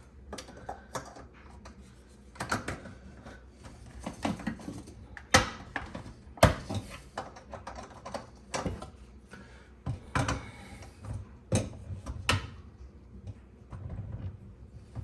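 Irregular clicks and knocks of dishwasher parts being handled and fitted back into place, the two loudest about five and a half and six and a half seconds in.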